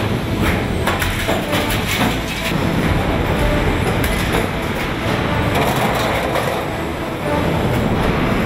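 Automotive stamping press line running: a steady mechanical din with repeated metallic knocks and clatter from the presses, robot transfer and sheet-metal panels.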